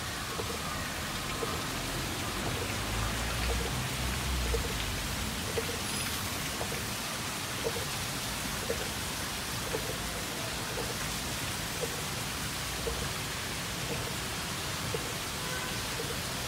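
Steady outdoor hiss, like rain or wind noise on a phone microphone, with a low rumble about three to five seconds in and a faint soft tick about once a second.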